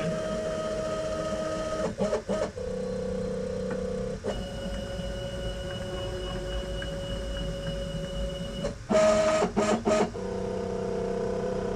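Axis drive motors of a desktop CNC router running a homing routine, giving a steady motor whine whose pitch shifts as the moves change, about two seconds and about four seconds in. Near nine seconds in come a few short stop-and-start moves as the machine finds its homing magnets, then a steady whine again.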